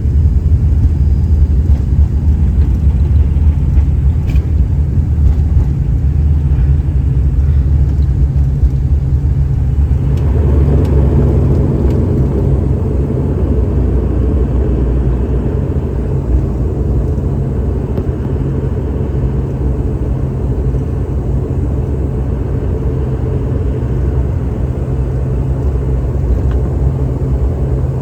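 Airliner cabin noise during landing: a steady low rumble of engines and airflow. About ten seconds in, a rushing noise rises and holds.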